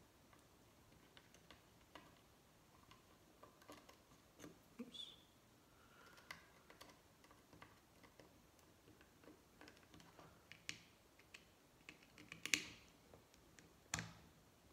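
Faint scattered clicks and ticks of a small T6 Torx screwdriver turning tiny screws out of a plastic key fob, with a couple of sharper clicks near the end.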